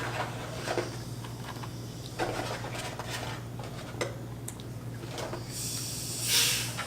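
Small handling sounds at a meal: scattered light clicks and taps over a steady low hum, with a louder rustle swelling and fading about six seconds in.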